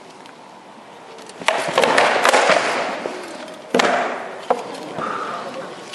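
Rattan swords clattering against shields and armour in a quick flurry of blows starting about a second and a half in. One more sharp strike follows near the middle, then a single knock.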